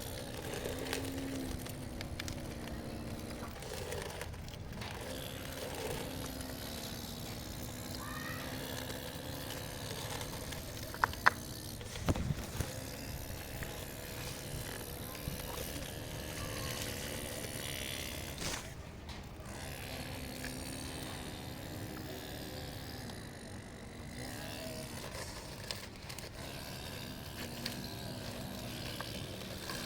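Radio-controlled model excavator's motors whirring as it works, the hum coming and going as the machine moves. A few sharp clicks or knocks come about eleven to twelve seconds in.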